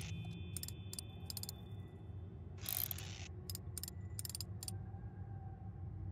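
Wind-up key in the back of a clockwork robotic bird being gripped and turned by a rusty metal tool. A string of short metallic ratchet-like clicks sounds in small groups, with one longer, louder scrape near the middle, over a low steady hum.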